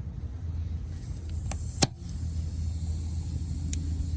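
Two sharp metallic clicks of side cutters gripping a nail stuck in the tire tread, the second louder, over a steady low hum and a faint hiss.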